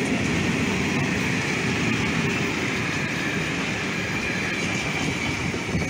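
Freight train's tank wagons and container flat wagons rolling past close by, a steady rumble of steel wheels on the rails with a faint ringing hiss above it.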